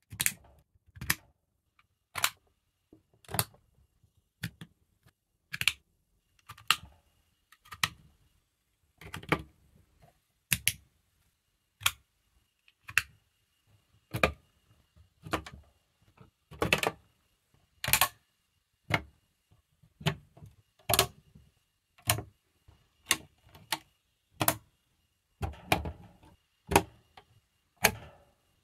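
Plastic LEGO Technic parts clicking together as friction pins are pushed into beams and panels, one sharp click about every second with short silences between.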